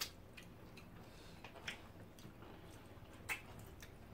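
Faint eating sounds from people eating fish pepper soup and starch by hand: scattered soft mouth clicks and smacks of chewing, the loudest about three seconds in, over a low steady room hum.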